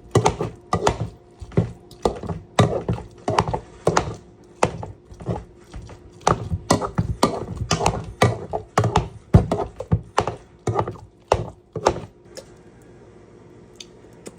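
Boiled potatoes being mashed with milk and ranch, the mashing utensil thudding and knocking against the bottom of the pot or bowl at about two strikes a second. The strikes stop about twelve seconds in.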